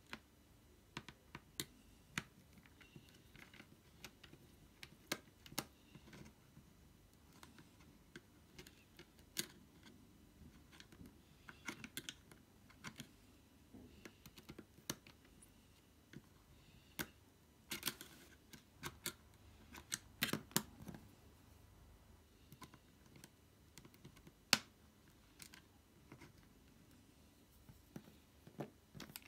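Small screwdriver working the screws of a Packard Bell Dot S netbook's chassis: light, irregular clicks and small scrapes of metal on screws and plastic, thickest about two-thirds of the way through.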